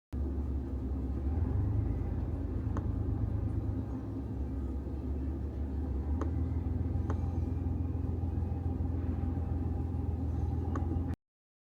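A steady low rumble with four faint, sharp clicks scattered through it.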